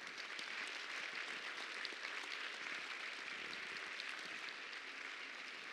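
Audience applauding steadily, many hands clapping at once, easing off slightly near the end.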